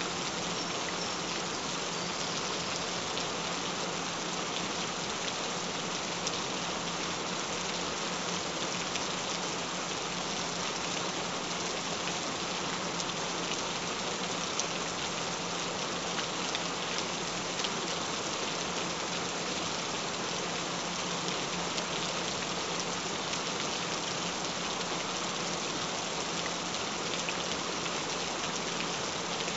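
Steady rain falling, an even hiss flecked with small drop ticks, over a constant low tone.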